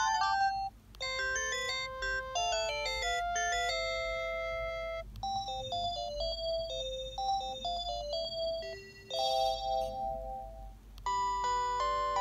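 Panasonic KX-TG8201CB cordless phone handset playing its built-in melody ringtones one after another as they are scrolled through in the ringer tone menu. They are short electronic tunes with several notes sounding at once, each breaking off after a few seconds as the next begins, with brief gaps about a second in, about five seconds in and about eleven seconds in.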